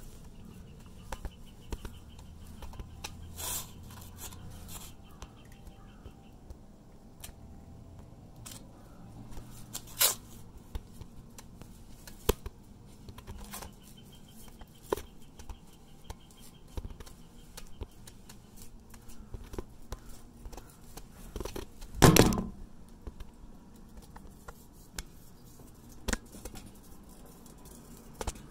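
Scraping and rubbing handling noise from the camera pressed against a surface, with scattered clicks throughout. A faint pulsing high tone comes twice, and one loud knock comes about 22 seconds in.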